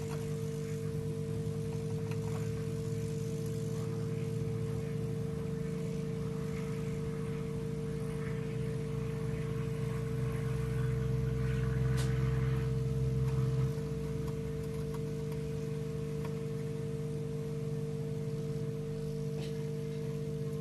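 Hot air rework gun's blower running steadily, heating the charging socket to desolder it from the phone's circuit board. It gets louder about halfway through, then drops back suddenly, with a single click in between.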